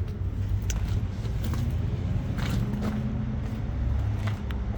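Steady low outdoor rumble with a few faint footsteps.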